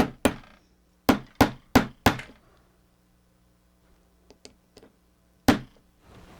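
Small hammer tapping a replacement gear onto its shaft: two sharp knocks, then four in quick succession about a second in, a few faint ticks, and one last hard knock near the end.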